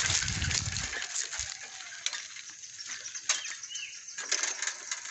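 Footsteps crunching on dry leaves and a dirt track: a run of irregular crackles and crunches over a steady high hiss, with a low rumble in the first second.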